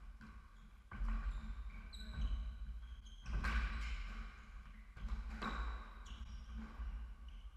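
Squash rally: the ball hitting rackets and the walls, with strong strikes about every two seconds, and shoes squeaking on the wooden court floor in between.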